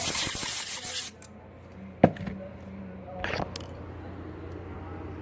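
A loud hiss for about a second, a single sharp click about two seconds in, then a brief fainter hiss, over a low steady hum.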